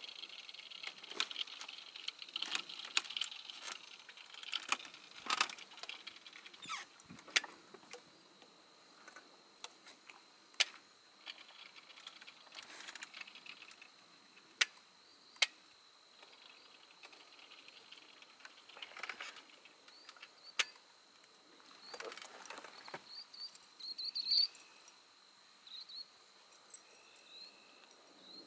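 Quiet evening salt-marsh ambience: a steady high-pitched insect drone under scattered sharp clicks and ticks, with a few brief chirps near the end.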